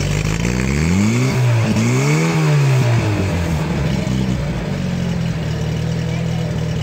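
Portable fire pump's petrol engine revved up and back down twice in quick succession, then held at a steady fast run.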